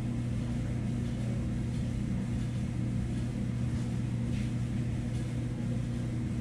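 Steady low machine hum at a constant pitch, unchanging throughout.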